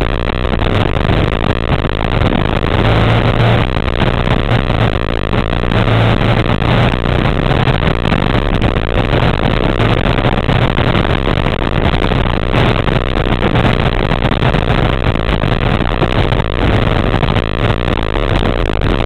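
Small race car's engine running loud and steady at speed, picked up by a camera mounted on the car's body. Its low note swells and fades every second or two.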